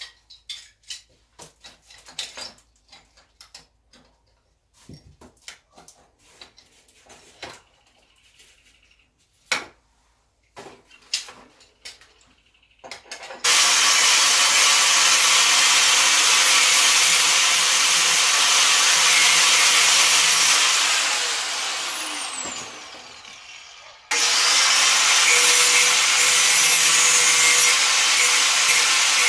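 Scattered clicks and knocks of pipes and tools being handled. About halfway through, a corded handheld power tool starts and runs steadily and loudly. Later it is switched off and winds down with a falling whine, then starts again and runs steadily.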